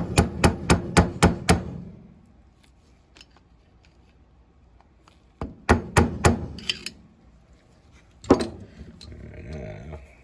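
Sharp metallic clicks of hand tools on an ATV engine's top end. A quick run of about seven comes at roughly four a second, then a second run of about four some six seconds in, and one single louder click near the end.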